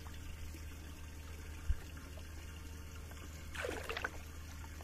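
Lake water trickling and lapping around a big largemouth bass held in the water at the boat's side, with a short splash about three and a half seconds in as the fish stirs. There is a single dull bump near the middle.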